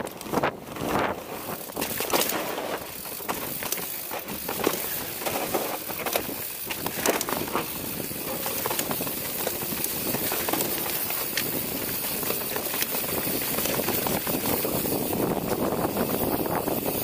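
Giant Trance 29er mountain bike riding over a rough dirt singletrack: tyres crunching and hissing on the dirt, with frequent clicks and rattles from the chain and frame over bumps.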